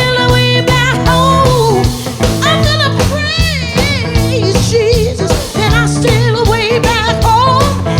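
Live band playing a swamp-gospel spiritual: sung vocals with wide vibrato over guitar and a drum kit keeping a steady beat.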